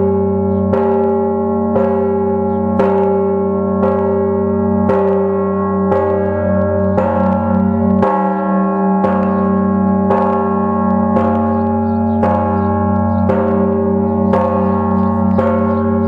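Large bronze church bell struck about once a second, each stroke ringing on into the next so that its deep hum carries unbroken beneath the strikes.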